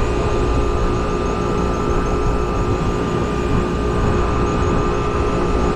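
Trane rooftop unit running with its compressor and condenser fan motor on, both drawing normal amps: a steady machine noise with a few steady tones through it.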